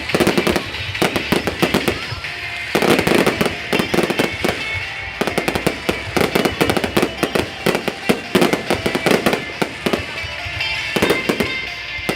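Aerial fireworks going off in quick succession: a dense stream of sharp cracks and bangs with a steady crackle, with music playing underneath.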